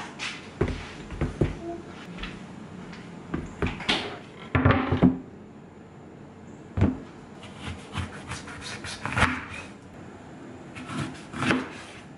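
Irregular knocks and clatters of kitchen handling: oranges set down on the counter and a wooden cutting board put in place, then a knife cutting oranges in half against the wooden board.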